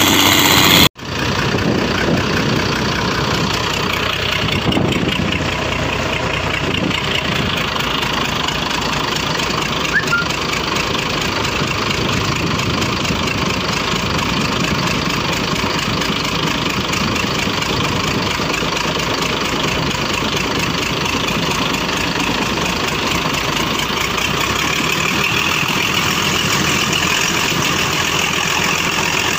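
Mitsubishi 6D16 six-cylinder diesel engine running at a steady speed, cutting out for an instant about a second in and then running on unchanged.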